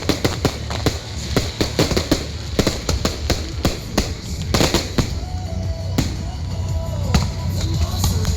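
Aerial fireworks bursting in rapid, overlapping bangs and crackles, densest for the first five seconds and then thinning to scattered reports. Music plays underneath.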